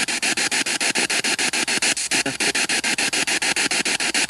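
Ghost-box radio scanner sweeping through stations over a small speaker: radio static chopped into even pulses about ten times a second. About two seconds in, a brief snatch of sound breaks the sweep, which the listeners take for a female voice.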